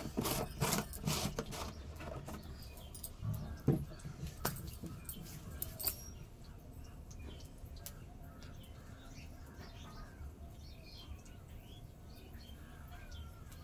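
Knocks and clunks of a large plastic oil jar being handled and put down beside a wood-fired stove, with a few more scattered knocks. It then goes quiet except for faint chirping of small birds.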